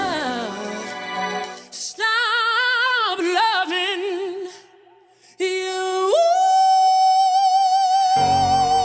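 A female soul singer sings alone, without the band, in melismatic runs with heavy vibrato. She pauses briefly, then holds one long high note. The backing band comes back in near the end.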